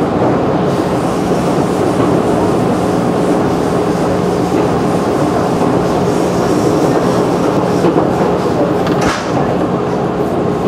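Running noise heard inside a JR 211-series electric train at speed: a dense, steady rumble of wheels on rail with a steady hum beneath it, and a brief rush of noise about nine seconds in.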